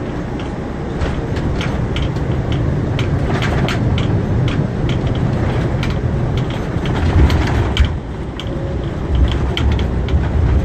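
Airbus A330 cockpit on the landing rollout: a steady heavy rumble from the runway and airframe, with the flight-deck fittings rattling and clicking throughout. The rumble swells about seven seconds in.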